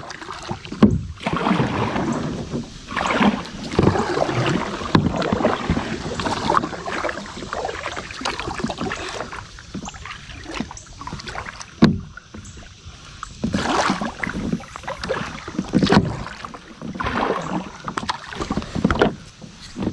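Kayak paddle strokes: the blade dipping and pulling through river water, splashing, about one stroke every second or two. The strokes ease off for a few seconds in the middle, where a single sharp knock is heard.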